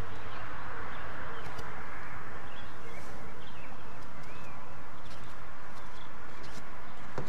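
Hot cast-iron Dutch oven sizzling as sliced onion rings are tipped into the drippings left from searing steak, a steady hiss with a few small clinks.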